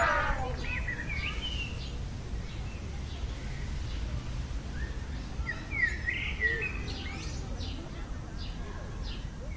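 Birds chirping in short, sweeping calls, in a cluster about a second in and another around six to seven seconds, over a steady low background rumble.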